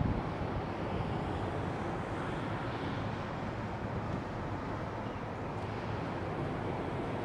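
Steady outdoor noise of wind and distant city traffic, with a brief low thump right at the start.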